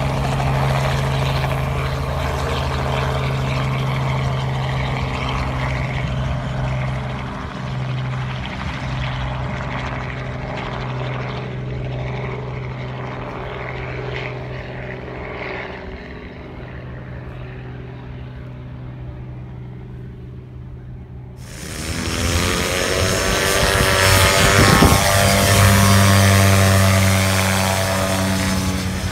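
A light helicopter flying, its steady rotor and engine sound growing fainter as it climbs away. Then a paramotor trike, a powered paraglider with a caged propeller, runs at full power, growing much louder as it comes past close by and easing off near the end.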